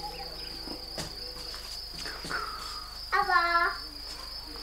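Insects chirring in a steady, high-pitched drone. A small child's voice calls out briefly about three seconds in, the loudest sound here.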